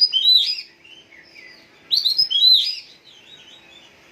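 Kecer songbird singing: two loud bursts of rapid, high chirping and sweeping notes about two seconds apart, with softer chirps between them.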